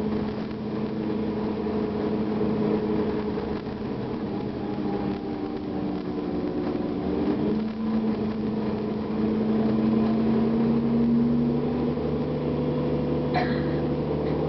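Cummins ISL inline-six diesel of a 2009 Gillig Advantage transit bus running under way, heard from inside the bus. Its note climbs slowly, then drops to a lower pitch about twelve seconds in, and a sharp click sounds near the end.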